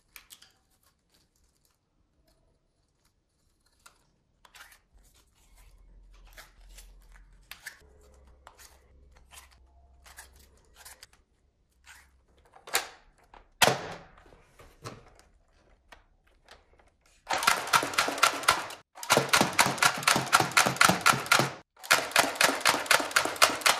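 Faint clicks and rustling of plastic toy parts being handled, then three bursts of rapid, evenly repeated rattling pulses, several a second, from a toy gun firing on full auto.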